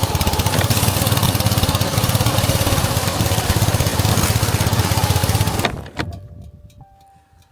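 Strong blizzard wind buffeting the microphone, a loud fluttering rumble with blowing snow, cutting off abruptly about six seconds in to a much quieter sound with a few faint clicks.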